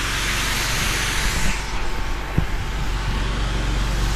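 Pressure washer engine running steadily, with a high-pressure water jet hissing against patio slabs for about the first second and a half, then easing off.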